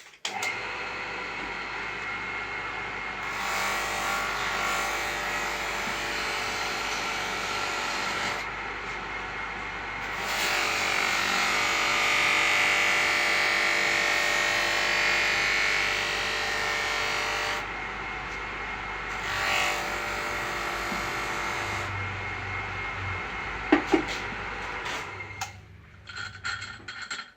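Electric dynamo motor running steadily with a hum and whine while a machete blade is ground against its abrasive. The grinding is loudest and hissiest in a long stretch through the middle, and the motor winds down near the end.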